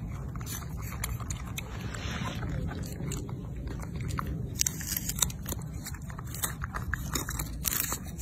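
Rhesus macaques chewing and biting fruit: a run of small, irregular crunchy clicks of teeth on food, over a steady low rumble.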